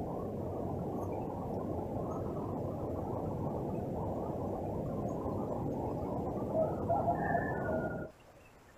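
A steady low outdoor rushing noise, with a few brief higher notes near the end, cuts off suddenly about eight seconds in.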